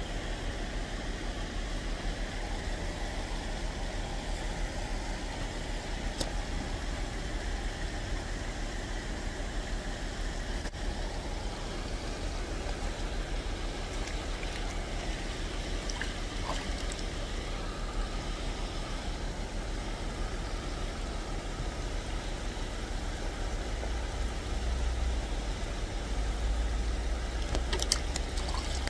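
Steady outdoor background rumble, heaviest in the low end and slightly louder near the end, with a few faint clicks.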